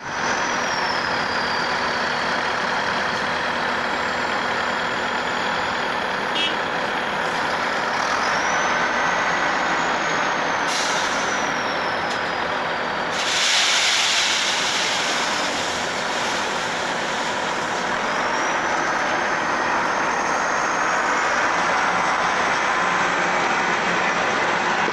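Heavy diesel equipment running steadily, with a high whine that rises and falls several times and a short burst of hiss about thirteen seconds in.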